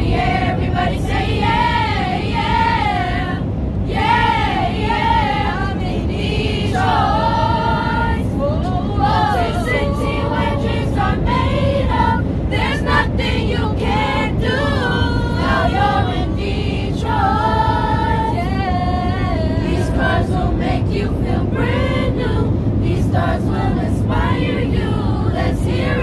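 Choir singing in an airliner cabin, the voices gliding through a sung melody over the steady low noise of the aircraft.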